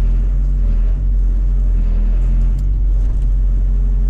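Excavator's diesel engine running steadily, a loud, even, low hum, with a couple of faint clicks about two and a half and three seconds in.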